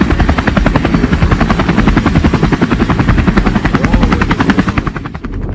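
Helicopter rotor chopping, a fast even beat of blade slaps over a deep rumble, easing off near the end.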